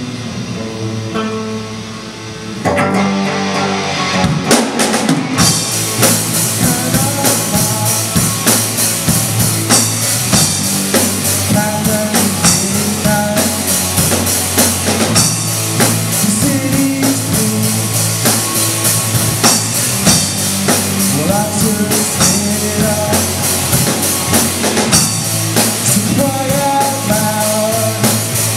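Live rock band playing: a quieter electric guitar passage, then about two and a half seconds in the drums crash in with a fill and the full band of electric guitars, bass and drum kit plays on at full volume.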